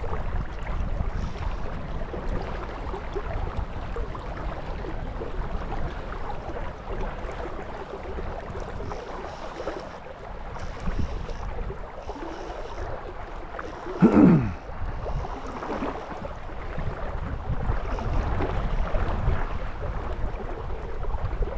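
Wind buffeting the microphone over lapping, wind-rippled river water. About two-thirds of the way in there is one short tone that slides sharply downward.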